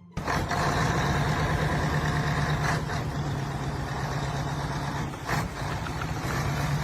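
A heavy engine running steadily, a low hum under a loud noisy wash, with two brief louder bursts about three and five seconds in.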